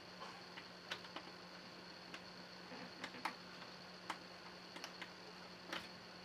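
Faint, irregular small clicks and taps of a screwdriver working screws out of a laptop's plastic screen surround, over a steady low hum.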